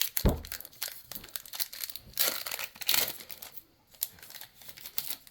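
A soft thump just after the start, then crinkling and tearing as a plastic trading card pack wrapper is torn open and handled.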